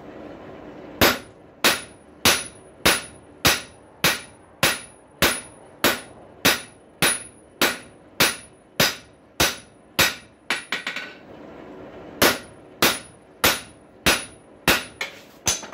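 Hammer blows on hot steel at the anvil, flattening the end of a rail spike: a steady run of evenly spaced strikes, nearly two a second, with a thin high ring, a short pause, then more strikes.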